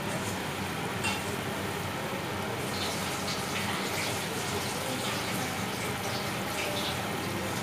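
Spiced water boiling hard in an aluminium pot: a steady bubbling hiss with a few small pops.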